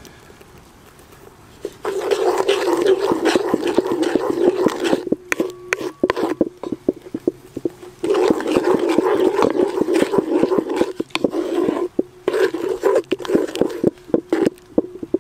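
Wooden spoon stirring and scraping around a metal cauldron of onions frying in fat, in three spells with short pauses, with sharp clicks of the spoon against the pot.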